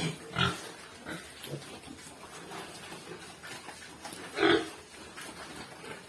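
Young crossbred piglets grunting in a pen in short, scattered calls, with one louder call about four and a half seconds in.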